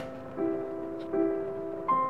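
Soft background piano music, a new note or chord starting about every three quarters of a second and ringing on.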